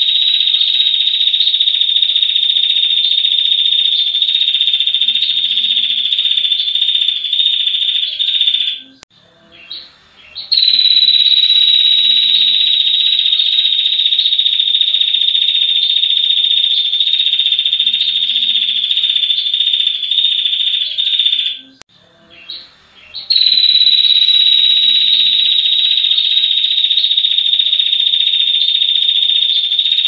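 Female ashy tailorbird giving its long, rapid, high-pitched trill (the 'ngetir' call), held unbroken for many seconds at a time. It stops briefly twice, about nine and twenty-two seconds in, and resumes each time.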